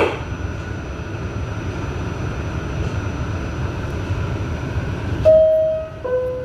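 Subway train standing at a station with its equipment giving a steady low rumble. About five seconds in, the two-note door chime sounds, a high tone then a lower one, signalling that the doors are about to close.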